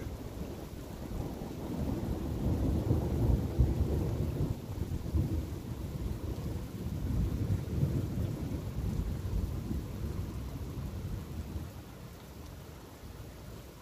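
Rolling thunder from a nearby storm rumbling for about ten seconds, swelling a couple of seconds in and dying away near the end.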